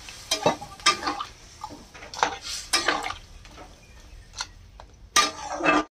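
Metal spatula scraping and clinking against an aluminium kadai as a wet crab curry is stirred, in a run of irregular scrapes and knocks with a louder clatter near the end.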